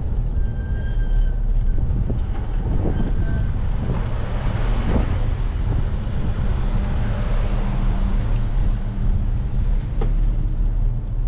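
Steady low rumble of a bicycle ride along a street, heard on an action camera: wind on the microphone and tyres on the pavement. A car passes about halfway through.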